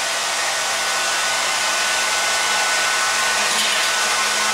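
Hair dryer running steadily: a wide rush of blown air with a faint steady whine over a low hum.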